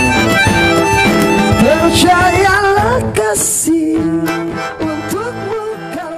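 Small acoustic band playing the closing bars of a song: melodica melody over strummed acoustic guitar and cajon, with a wordless sliding vocal line sung into a microphone. The music thins out and fades near the end.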